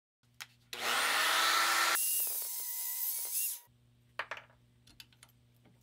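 Bench grinder motor spinning up with a rising whine, then a hissing grinding noise, which cuts off sharply about three and a half seconds in. A few light metallic clicks follow.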